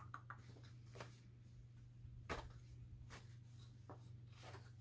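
Near silence: faint rustles and light clicks of papers and stitching supplies being handled, several times, over a steady low hum.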